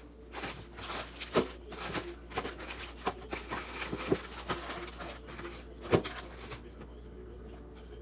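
Plastic-wrapped cheese packages rustling and crinkling as they are handled and set into a clear plastic fridge drawer, with irregular clicks and knocks against the drawer. The two sharpest knocks come about a second and a half in and about six seconds in, and the handling dies down near the end.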